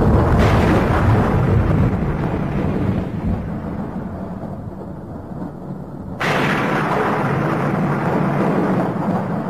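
Thunder: a long low rumble fading away, then a sudden sharp clap about six seconds in that rolls on into another rumble.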